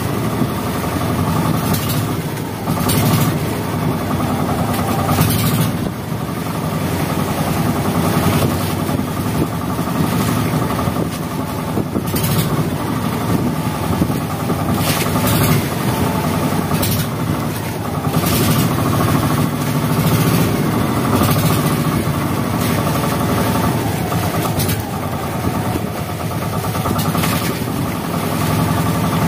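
Small bangka outrigger boat's engine running steadily in a continuous rumble.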